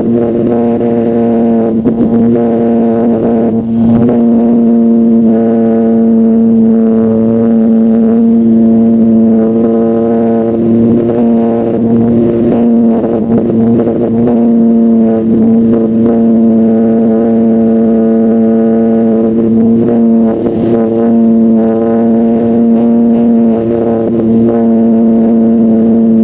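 E-flite Apprentice 15e's electric motor and propeller running at a steady, high whining pitch in flight, heard close up from a camera mounted on the airframe.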